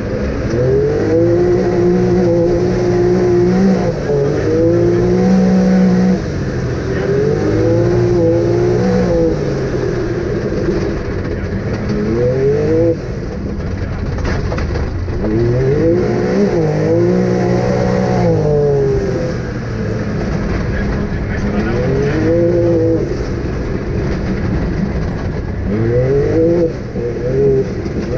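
Off-road vehicle's engine being driven hard, its pitch climbing and falling again and again as it accelerates and comes off the throttle, with a few brief drops in level.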